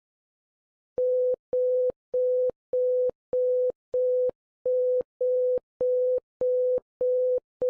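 Electronic alert beeps: one steady mid-pitched tone pulsing on and off a little under twice a second, with a faint click at the start and end of each beep. The beeping begins about a second in.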